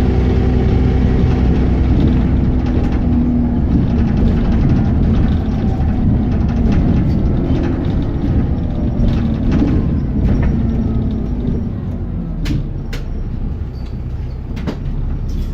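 Alexander Dennis Enviro400 bus running under way, a loud drivetrain noise with several whining tones that shift in pitch. This is the odd noise the bus makes when accelerating, which the owner can't identify. It eases off over the last few seconds, with a few sharp clicks.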